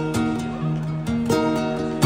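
Live amplified acoustic guitar playing an instrumental passage, with plucked notes struck and held.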